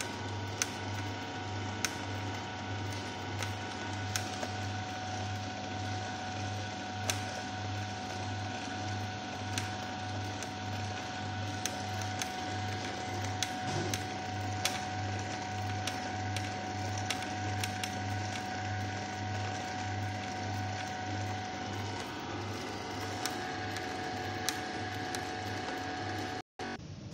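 Vertical slow juicer running as it presses produce: the motor hums with a low, regular pulse and a steady whine, and sharp clicks come every second or so from the turning auger.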